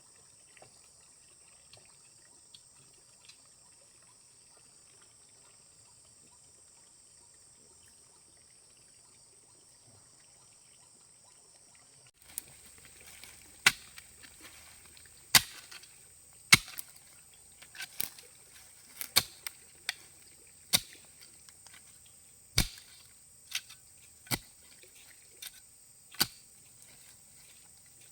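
Insects, crickets or cicadas, making a steady high-pitched drone. About halfway through, a series of sharp knocks starts over it, irregular and roughly one a second.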